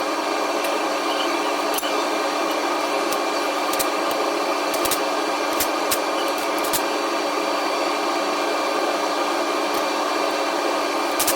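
Smoke hog fume extractor running steadily with a fan-like hum, with scattered sharp clicks over it.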